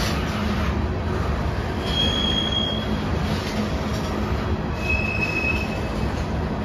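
Freight train of CSX covered hopper cars rolling past, a steady rumble of steel wheels on the rails. Two short, high-pitched wheel squeals, one about two seconds in and one about five seconds in.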